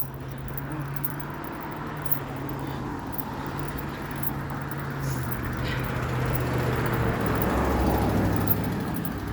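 A car going by on the road: a low engine hum and tyre noise that build slowly, loudest about eight seconds in, then begin to fade.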